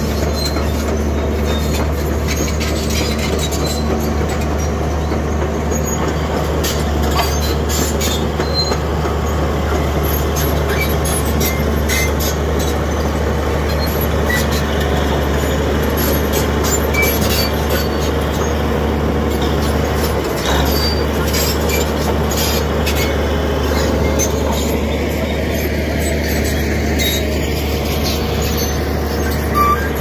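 Komatsu D85A-18 crawler bulldozer's diesel engine running steadily, with many sharp metal clanks from its steel tracks as it moves.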